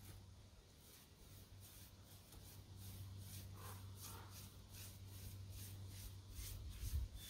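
A paintbrush scrubbing stain onto log walls: faint scratchy strokes, about two or three a second, with a soft low thump near the end.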